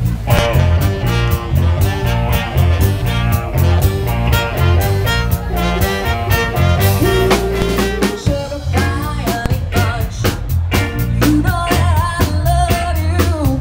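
Live soul band playing: a steady drum-kit beat and electric bass under saxophone and trumpet lines, with keyboard.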